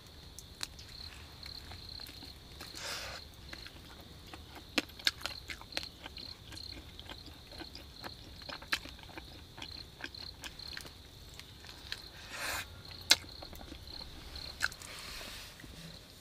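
Close-up chewing and biting into a whole roasted rodent, with scattered sharp clicks and crunches as the meat is torn and a few short rustles. Behind it a cricket chirps steadily, about two chirps a second.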